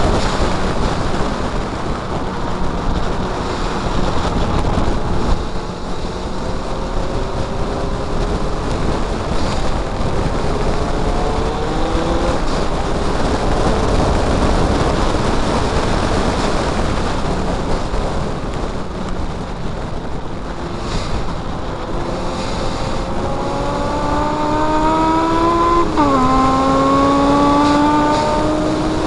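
Mazda MX-5's four-cylinder engine running hard under racing load, heard on board over heavy wind and road noise. Its pitch climbs under acceleration and drops at a gear change about halfway through; it climbs again strongly near the end and drops sharply at an upshift.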